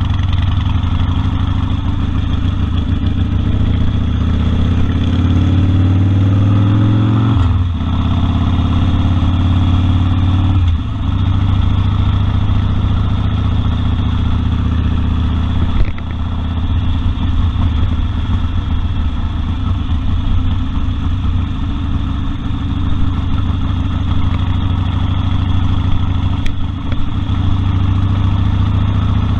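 Harley-Davidson Sportster 1200 Custom's air-cooled V-twin running under way. Its note climbs for several seconds, drops sharply at a gear shift about seven and a half seconds in, then runs steady, with a few brief dips later on.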